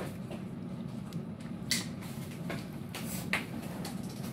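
Okra and meat frying in a wok, with a few sharp pops of spattering oil over a steady low hum.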